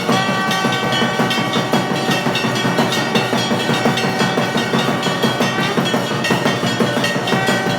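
Temple aarti instruments: loud, rapid clanging percussion of bells and drums, with steady ringing tones held over it.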